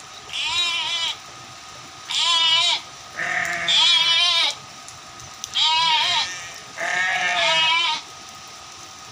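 Sheep bleating: about six wavering calls, each lasting up to about a second, spaced through the first eight seconds.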